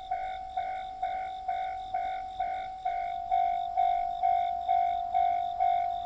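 Japanese level-crossing alarm at an in-station crossing, sounding its electronic bell tone about twice a second, warning of an approaching train. The strikes grow gradually louder.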